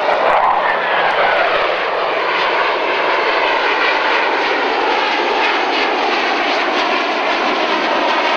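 Jet roar from the Blue Angels' F/A-18 Hornets flying overhead in formation. A falling whine in the first second or so marks a jet passing by, then a steady loud roar follows.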